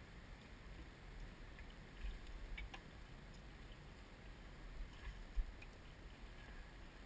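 Faint handling noise of a GoPro Hero HD camera being moved about: a low rumble with a few soft knocks and clicks, the loudest a little past the middle.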